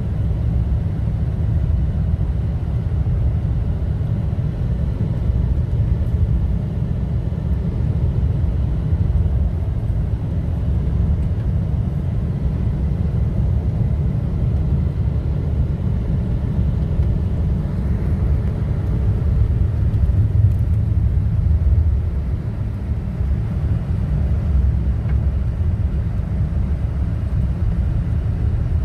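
Toyota Tacoma pickup driving on a snow-covered road: a steady low rumble of engine and tyres, swelling a little about eighteen seconds in and easing off around twenty-two seconds.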